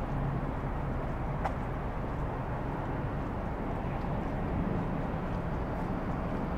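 Steady low rumble of distant city traffic, with one faint click about one and a half seconds in.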